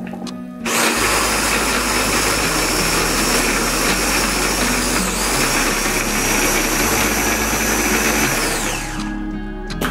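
Electric mini food chopper running, its blade whizzing chopped peppers into a paste. The motor starts with a steady high whine just under a second in, falters briefly about halfway, and winds down with a falling whine near the end.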